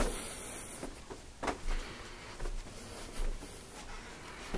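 Soft low thuds of footsteps on carpet and handheld-camera handling over quiet room tone, with one short sharper click about one and a half seconds in.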